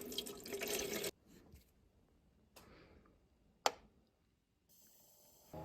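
Handling rustle for about a second, then a few sharp clicks, the loudest about two thirds of the way in, as a mini evaporative air cooler's controls are pressed. A faint high whine starts near the end.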